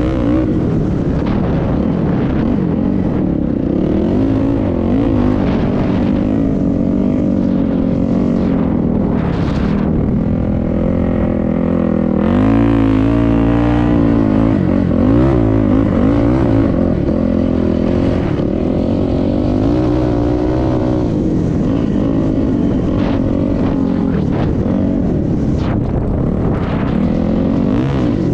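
Engine of a moving vehicle running steadily, its pitch wavering up and down, over a constant rushing noise.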